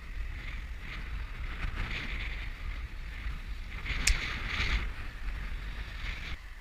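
Wind noise rumbling on the microphone of a bicycle-mounted camera while riding, with rolling road noise and a single sharp click about four seconds in.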